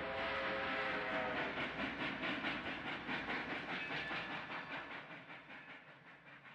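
Steam locomotive running, its exhaust chuffing in a quick, even rhythm. A whistle sounds at the start and dies away within about a second and a half, and the whole sound then fades out gradually.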